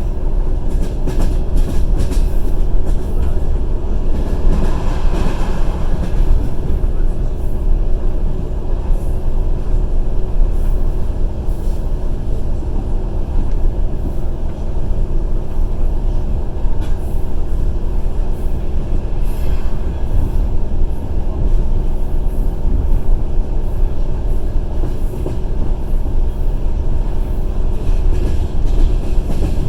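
Passenger train running along the track, heard from inside the carriage: a steady heavy rumble of the wheels with occasional sharp clacks over rail joints. A brief rise in a higher hiss comes about five seconds in.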